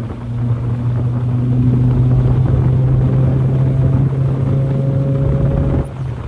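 1990 Mazda Miata's 1.6-litre four-cylinder engine pulling at steady revs at highway speed, heard from inside the stiff, open cabin with road noise. The sound drops suddenly near the end as the engine comes off load.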